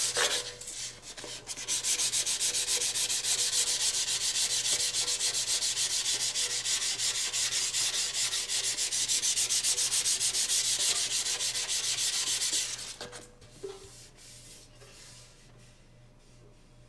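Sandpaper rubbed by hand over the steel surface of a Honda CL90 gas tank around a freshly pulled dent, in quick, even back-and-forth strokes. It stops about 13 seconds in.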